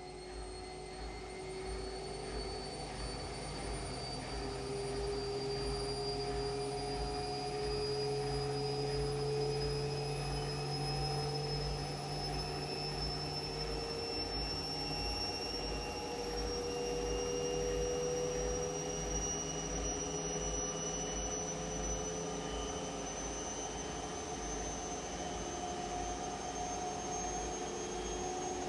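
Washing machine running with a steady low hum and a high motor whine that rises slowly in pitch as the drum speeds up. The sound fades in over the first few seconds.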